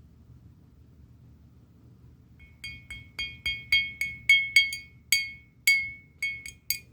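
A hard object, glass by the ring of it, clinked or tapped about fifteen times in quick, uneven succession, each strike ringing at the same high pitch; they begin about two and a half seconds in.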